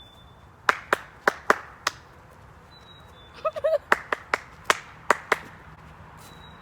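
Sharp hand claps, about a dozen in two uneven runs, with a short wavering squeal between them. A faint, short, high bird whistle is heard twice.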